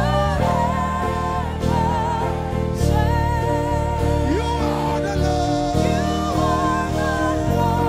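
Live gospel worship music: a band playing sustained chords over a bass line, with voices singing long, wavering held notes.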